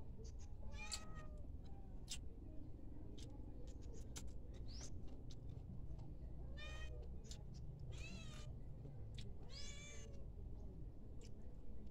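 Short high-pitched animal cries, about five spread out, one of them rising sharply, over scattered light clicks and a low steady hum.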